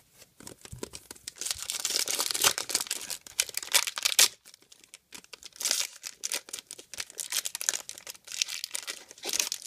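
A trading-card pack's foil wrapper being torn open and crinkled in the hands: a dense crackling full of sharp ticks, in two spells with a short lull about halfway through.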